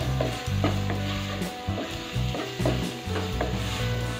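Onions, garlic and green chilli sizzling in butter in a nonstick pot while a wooden spatula stirs them, with repeated short scrapes and taps of the spatula against the pan.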